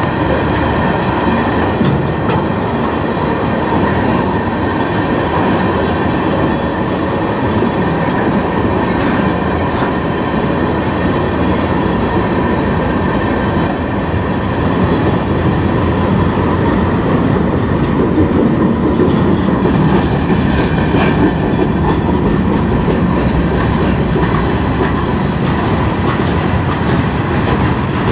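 Freight cars of a manifest train rolling past at close range: a steady rumble of steel wheels on rail, with faint steady high ringing tones. Wheel clicks over the rail joints become more frequent in the second half.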